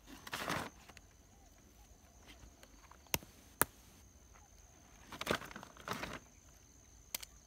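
Handling noise as loose stones are picked up off gravel: rustling, scraping bursts and three sharp clicks of stone knocking on stone, two about half a second apart in the middle and one near the end.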